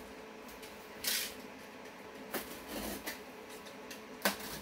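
Cardboard parcels being handled with a box cutter: a short scraping rustle about a second in, a few light knocks, and a sharp click near the end as the cutter is set to the taped lid.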